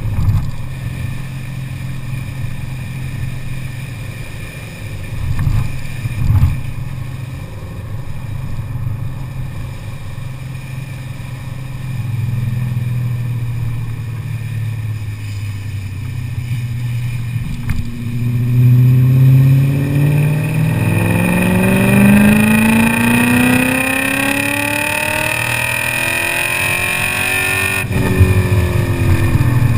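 2001 BMW M5's 4.9-litre V8 through a muffler-delete exhaust with a resonated X-pipe: a steady low drone at cruise, then from about two-thirds in a long pull with the pitch rising for several seconds. Near the end an upshift cuts the rise and the pitch drops before it climbs again.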